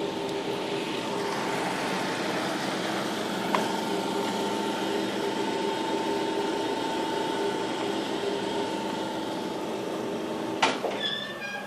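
A motor running with a steady hum of several constant tones, cutting off abruptly with a sharp click near the end.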